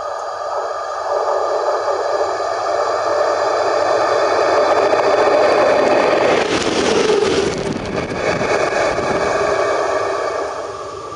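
Škoda 59E (class 182) electric locomotive running light, passing directly over a microphone placed between the rails. Its motor hum grows louder and peaks with a burst of wheel-and-rail noise about two-thirds of the way through as it rolls overhead, then fades as it moves away.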